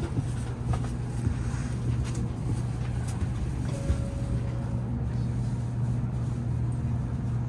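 Steady low hum inside a Shinkansen passenger car standing at the platform: the car's ventilation and on-board equipment running, with a faint higher tone briefly about four seconds in.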